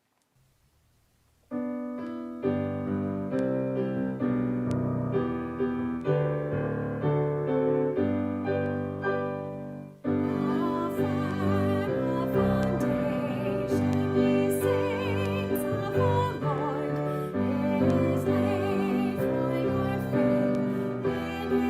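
Piano playing a slow hymn introduction in sustained chords, joined about ten seconds in by a solo singing voice with vibrato.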